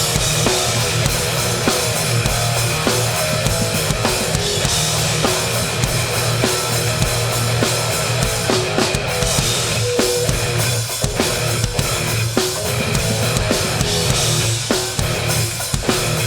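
Loud heavy hardcore music without vocals: a drum kit with bass drum and crash hits under distorted electric guitars, played live through a PA.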